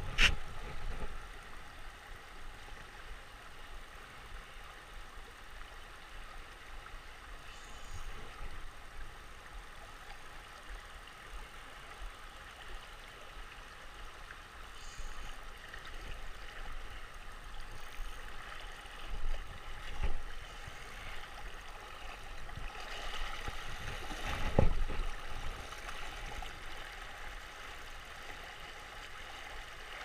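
Shallow river water running steadily past, a continuous rush with gurgling. A few sharp knocks stand out over it, the loudest right at the start and about 25 seconds in.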